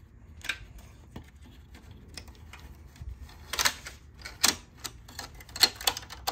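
Clicks and clacks of plastic and sheet-metal printer parts being handled while wiring is pulled free from the printer's frame. There are a few scattered sharp clicks at first, then a quicker cluster of louder ones in the second half.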